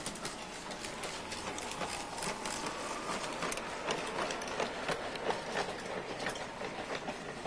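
Model train running on its track, with a busy, irregular clatter of clicks from the wheels and mechanism.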